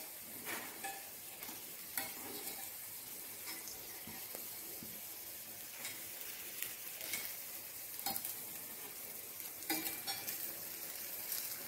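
Idli-batter dumplings sizzling softly and steadily in oil in a paniyaram pan, with scattered light clicks of a spoon against the pan as they are turned.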